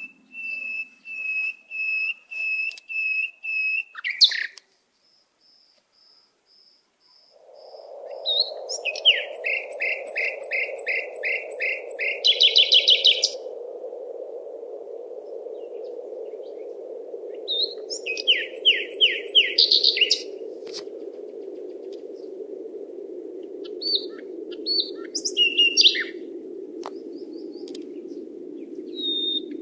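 Songbirds singing: runs of repeated high whistled notes, then fast trilled phrases with pauses between them. A steady low rushing noise comes in about seven seconds in and continues underneath.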